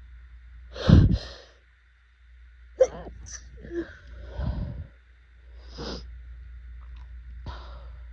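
A loud sneeze about a second in, then several shorter, quieter sounds, during a pollen-allergy attack.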